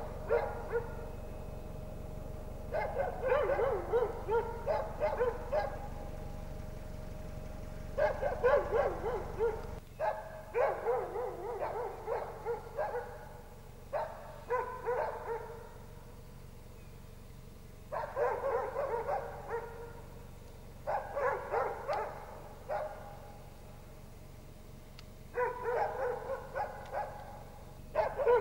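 An animal calling in repeated bouts of quick, pitched yelping notes, each bout lasting one to three seconds with short pauses between. A steady low rumble runs underneath and stops about ten seconds in.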